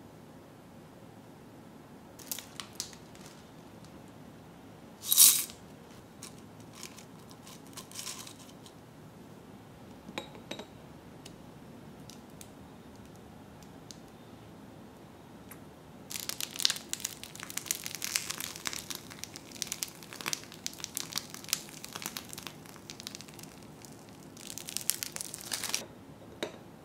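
Food-handling noises while a dango dessert is put together: scattered soft clicks and crinkles, one short louder rustle about five seconds in, and a long dense run of crinkling and crackling over the last ten seconds.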